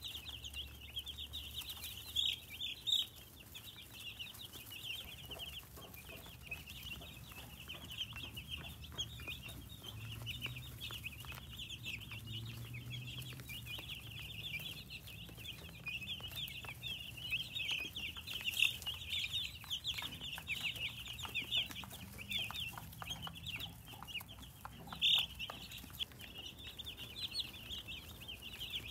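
A brood of baby chicken chicks peeping continuously, many short high cheeps overlapping, with a few louder peeps a couple of seconds in and about 25 seconds in.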